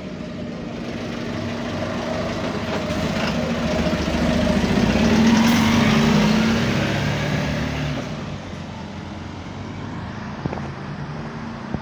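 Volvo double-decker bus pulling away from a stop, its engine rising in pitch as it accelerates, loudest as the rear passes close by a few seconds in, then fading as it drives off down the road.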